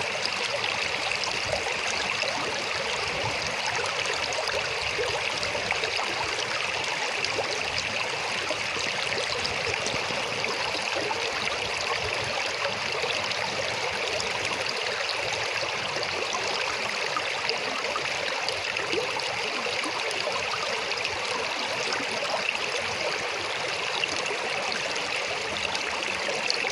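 River water running steadily over rocks, a continuous rushing and burbling with small splashes throughout.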